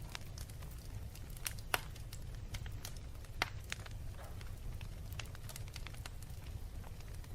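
Wood fire burning in a fireplace, logs crackling and popping irregularly over a low steady rumble, with two sharper pops about a second and a half and three and a half seconds in.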